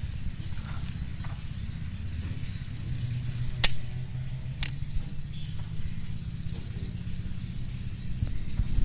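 Sharp clicks of hard ballast stone pieces being handled and broken by hand on a steel rail. The loudest comes about three and a half seconds in and a fainter one a second later, over a low steady rumble.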